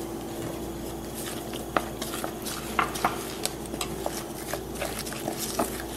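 Wooden spoon stirring flour into water and yeast in a mixing bowl to make bread dough, with many small irregular taps and scrapes of the spoon against the bowl as the wet mixture is worked.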